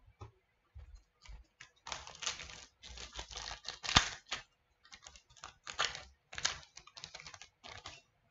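A trading card pack being handled and opened: a quick, irregular run of rustling, crinkling scrapes and cards sliding against each other, with one sharp click about four seconds in.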